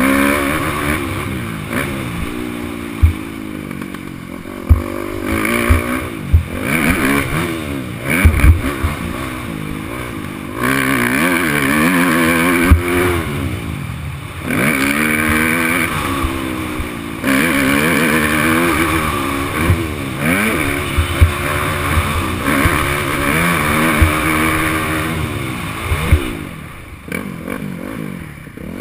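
Yamaha YZ250F's single-cylinder four-stroke engine revving up and falling off again and again as the throttle is worked around the track, with scattered sharp knocks and clatter as the bike hits bumps and landings. Rushing noise comes and goes in the faster stretches.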